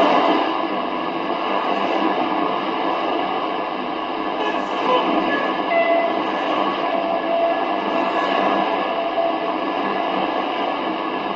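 Weak shortwave signal on 21550 kHz heard through a Kenwood R-1000 communications receiver: steady hiss and static that bury the station's audio, with a few faint steady tones in the noise.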